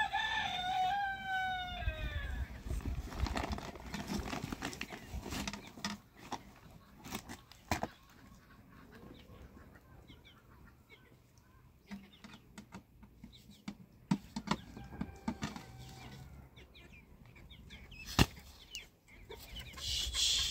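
Domestic chickens clucking, with a rooster crowing once at the start in a long call that falls in pitch. A couple of sharp knocks come in between.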